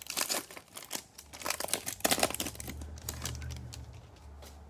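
Foil wrapper of a Bowman baseball card pack being torn open and crinkled. A burst of crackling over the first couple of seconds, dying away after that.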